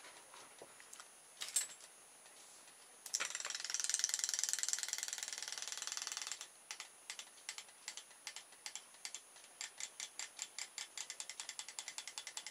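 RoboFish robotic toy fish's magnet-and-coil tail drive working in a bowl of water, its tail missing: a fast rattle for about three seconds, starting suddenly about three seconds in, then steady sharp ticking about four times a second.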